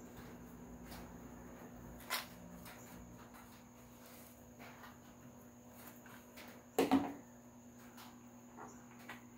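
Quiet handling knocks while a prop is being put together with screws: a sharp tap about two seconds in, then a louder double knock near seven seconds, over a steady low hum.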